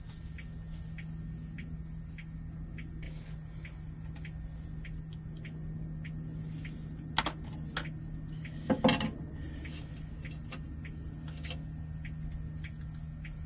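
Crickets chirping about twice a second over a steady low hum. Near the middle come a couple of sharp clicks and a knock as plastic pieces of the PCV valve assembly are fitted onto the engine.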